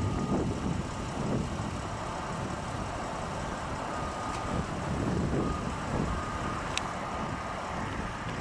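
Steady low engine rumble with a faint high tone coming and going several times.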